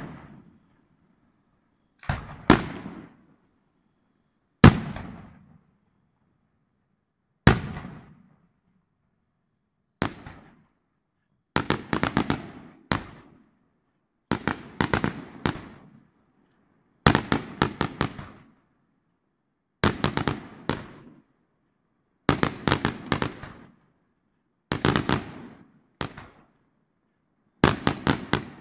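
Aerial firework shells bursting, a bang every two to three seconds. The first few are single sharp bangs; later ones break into quick clusters of several cracks each.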